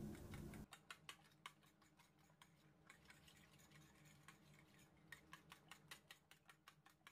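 Metal fork whisking egg and milk batter in a glass bowl: faint, irregular clicks of the fork tapping against the glass. A low hum cuts off abruptly under a second in.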